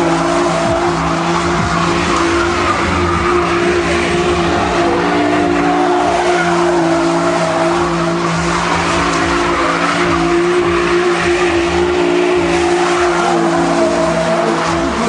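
A car spinning donuts with its tyres squealing continuously against the tarmac, the squeal wavering in pitch as it circles. Under it, the engine is held at steady high revs.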